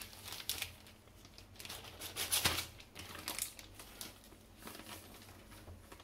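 Clear plastic zip-lock bag crinkling and rustling in the hands as it is worked over a pizza base and its zip strip pinched shut. The crackles come irregularly, the loudest about two and a half seconds in.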